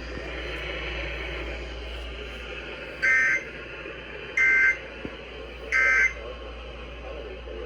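Emergency Alert System end-of-message data bursts: three short, loud two-tone screeches of SAME digital code, about a second and a half apart, marking the end of the flash flood warning broadcast. They sound over a steady hiss.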